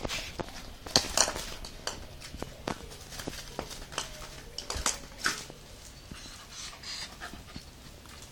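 A cat's paws scuffling and patting on a crinkly plastic sheet over cardboard as it bats a small ball about: irregular light taps and short rustles of plastic.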